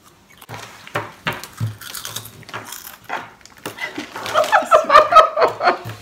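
Crackers and crumbs crunching and crackling on a wooden tabletop. Then, from a little past halfway, a louder stretch of laughter.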